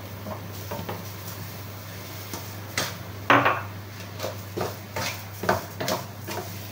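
Wooden spatula scraping and knocking against a metal kadhai while stirring crushed coconut. A loud knock comes about three seconds in, then quicker strokes, about three a second.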